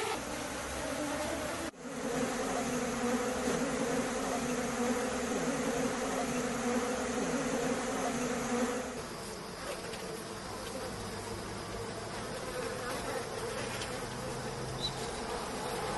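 Swarm of small wild honeybees buzzing around their exposed comb, a steady hum that cuts out for a moment about two seconds in. After about nine seconds the buzz becomes quieter and lower.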